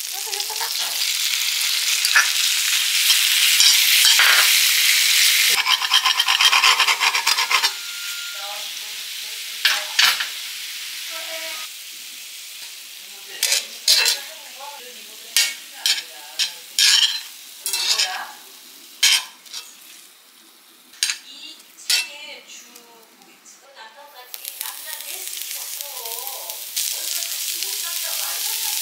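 Food sizzling in a hot frying pan, loud for the first several seconds, then a cooking utensil knocking and scraping against the pan in short sharp strokes while the frying goes on more quietly. The sizzle builds up again near the end.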